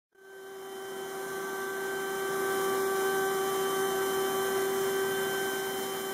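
Carvewright CNC carving machine running: a steady motor whine over a rushing hiss, fading in over the first second.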